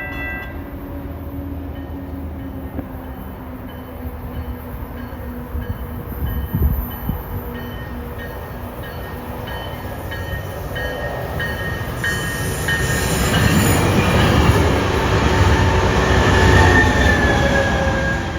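Tri-Rail commuter train approaching and passing, its rumble swelling into a loud rush of wheels and rails over the last several seconds, with a brief squeal near the end. A faint regular ding, about twice a second, runs through the first half.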